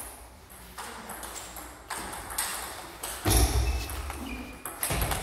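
Table-tennis rally: the ball clicks sharply off the rubbers and the table, stroke after stroke, with a heavier thump about three seconds in.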